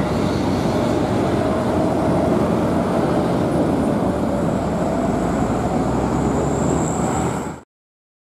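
Medium tourist bus's diesel engine running as it passes and pulls away, mixed with steady road traffic noise; the sound cuts off suddenly near the end.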